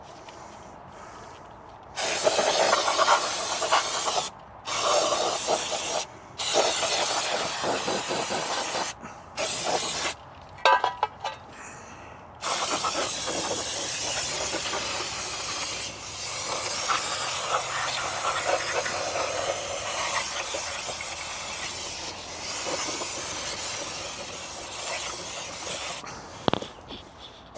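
Pressurised cleaning spray hissing on the scooter's transmission parts: several short blasts, then one long continuous blast of over ten seconds.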